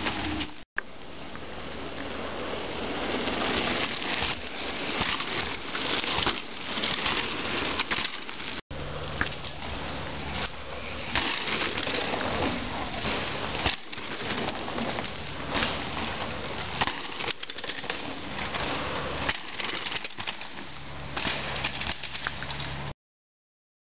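Crunching and crackling of dry leaf litter and dirt on a forest bike trail, over a steady rushing noise on the camcorder microphone. The sound drops out briefly twice.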